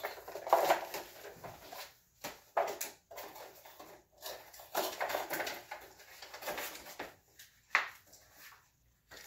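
Cardboard kit box and its plastic-wrapped contents being handled and unpacked: irregular rustles and knocks with short pauses.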